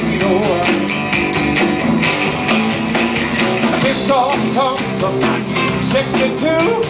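Live roots-rock band playing: electric and acoustic guitars, electric bass and drum kit, with a steady beat and pitched lines that bend up and down.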